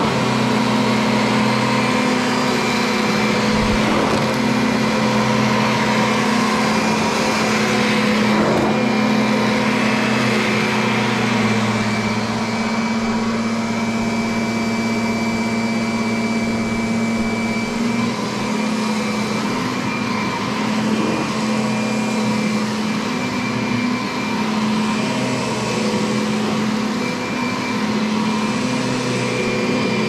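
Vacuum cleaner running steadily: a motor hum over a rush of air, its pitch shifting slightly now and then.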